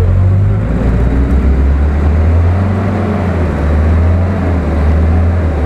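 Toyota Land Cruiser's engine running steadily with a low drone as the truck sits bogged in deep mud.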